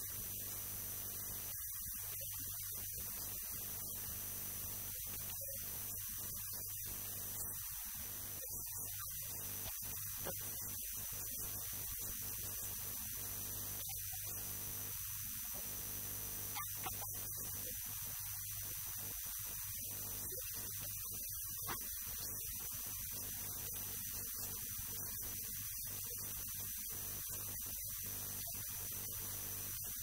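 Steady low electrical hum with a thin high whine and a hiss, unchanging throughout, with a few faint clicks.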